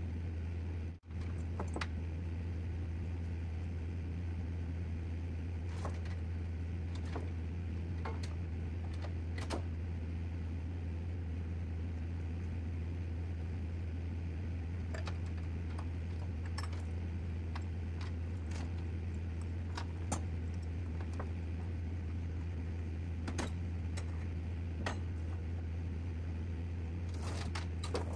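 Steady low drone of a truck driving, heard from inside the cab, with scattered light jangles and clicks of loose items rattling. The sound drops out for a moment about a second in.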